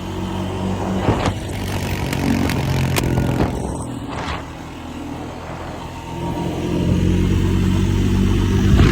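Honda 400's engine under way: it backs off around the middle and then pulls back up near the end. A few sharp pops and crackles from the exhaust come through along the way.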